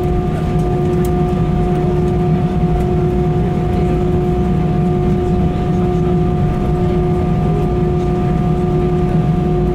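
Inside the cabin of an Airbus A320-216 taxiing, with its CFM56 engines at idle: a steady low rumble and a constant hum.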